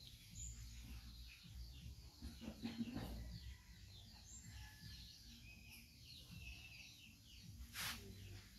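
Faint background birdsong, many small birds chirping and twittering. There is a soft low rustle about three seconds in, and a brief hiss near the end.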